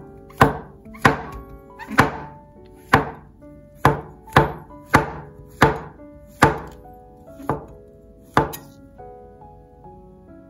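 Chef's knife slicing button mushrooms on a wooden cutting board: about eleven sharp chops at roughly one a second, each blade stroke knocking on the board, stopping near the end. Light background music runs underneath.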